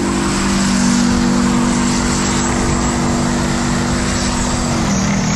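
Armoured vehicle's diesel engine running with a steady drone; its pitch dips briefly near the end.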